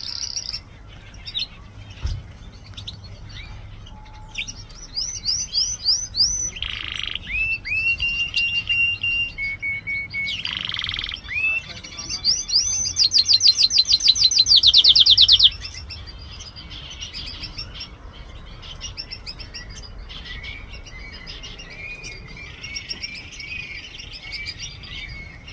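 A small yellow songbird singing a long, varied song of chirps, whistled notes, sweeping calls and rapid trills. It is loudest in a fast, even trill a little past the middle, then drops back to softer twittering.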